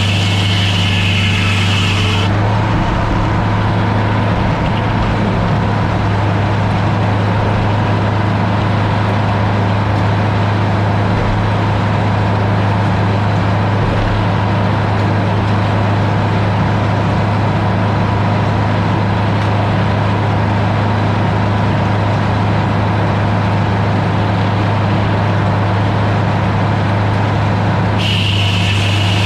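Heavy engine running steadily at one constant speed with a strong low hum, and a high whine over it for the first couple of seconds and again near the end.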